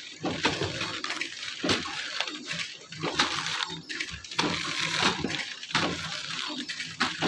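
Flow-wrapping packaging machine running while the plastic film of a sealed instant-noodle pack crinkles in a hand: an irregular rustling hiss with sharp crackles.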